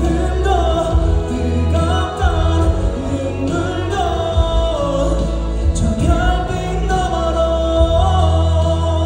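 A singer performing a slow ballad live over a backing track, with long held notes that slide between pitches over a steady deep bass.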